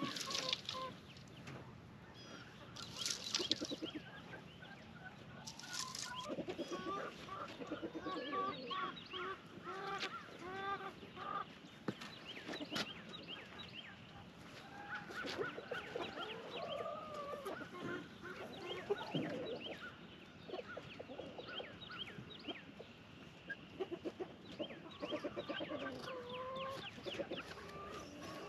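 A flock of chickens clucking and calling, with a couple of short rustling noises a few seconds in.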